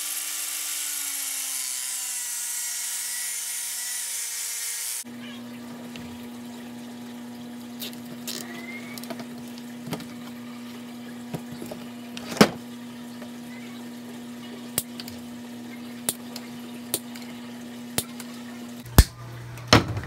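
A 4-inch angle grinder with a cutoff wheel runs for about five seconds as it cuts a groove into PVC pipe, its pitch dropping slightly, then stops abruptly. After that comes a quieter steady hum with scattered clicks and handling sounds as zip ties are fastened to the pipe.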